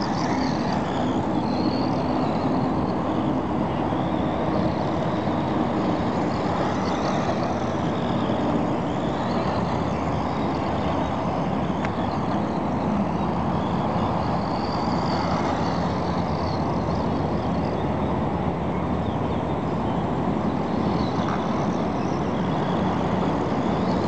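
A 1:16 electric RC buggy driving over dirt and grass, its motor giving a faint whine that rises and falls a few times as it speeds up and slows. A steady, loud rushing noise runs under it.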